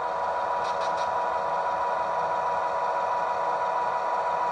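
Sound-equipped HO scale model diesel locomotive running steadily through its small onboard speaker as it creeps back to couple onto the cars, with a constant high tone over the rumble. A few faint clicks come about a second in.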